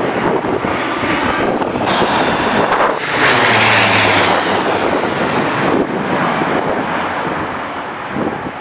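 Landing aircraft's engines passing close by, growing louder and peaking about three to four seconds in, with a high whine that drops in pitch as it goes past. Gusty wind buffets the microphone throughout.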